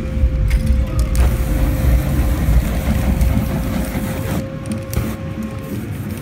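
Spray-paint aerosol flame torched over the wet painting: a hissing rush that starts about a second in and cuts off about four seconds in, over a low rumble and a thin steady hum.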